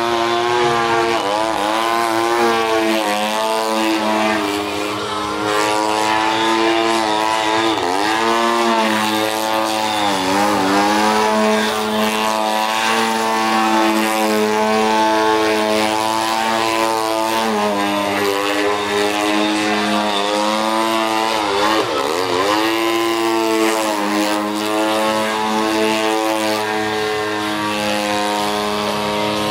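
Large radio-controlled aerobatic airplane's engine and propeller running in flight, its pitch swooping down and back up sharply a few times as it throttles and passes.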